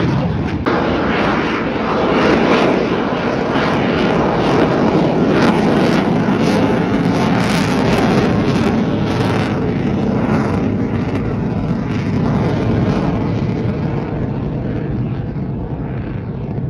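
Aircraft flying past: loud, rough engine noise full of crackle, swelling over the first few seconds and fading near the end.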